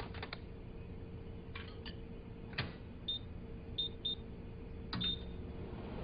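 Clicks and knocks of a microwave oven being handled, then four short high electronic beeps from its keypad as buttons are pressed, the last with a click.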